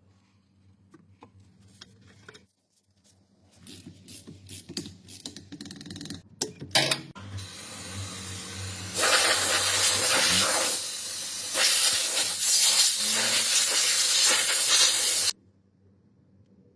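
A few light clicks and knocks, then a loud pressurized spray hissing from about seven seconds in. The hiss grows stronger about two seconds later, dips briefly, and cuts off suddenly near the end.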